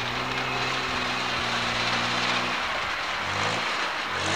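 Lifted pickup truck's engine held at high revs as it sits stuck in mud, its tyres spinning and throwing water and mud with a steady hiss. The engine note drops off after about two and a half seconds and is revved up again twice near the end.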